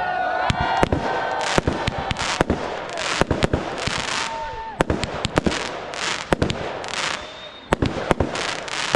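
Fireworks display: a rapid series of sharp bangs as shells launch and burst, with hissing and crackling between them.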